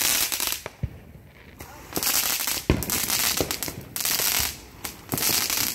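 Aerial fireworks firing: four loud hissing whooshes, each half a second to a second long, with sharp cracks between them.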